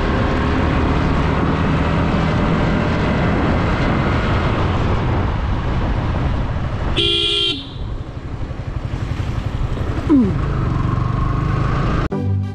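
Steady wind and road noise of a Yamaha R15 V3 motorcycle on the move, its engine running. A vehicle horn honks once, about half a second long, around seven seconds in.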